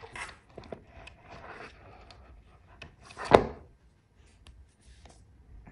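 Hands flexing a silicone mould and popping cured epoxy resin cabochons out of it: soft rubbing and small clicks, with one sharper knock a little past halfway.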